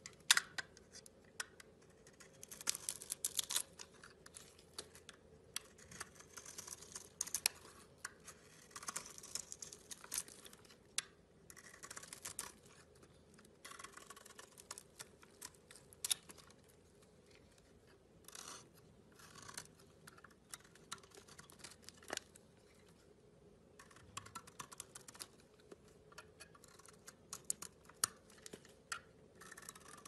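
A bare snap-off utility knife blade cutting and shaving a bar of dry, crumbly soap: crisp scraping and crunching strokes in bursts, with short pauses between cuts.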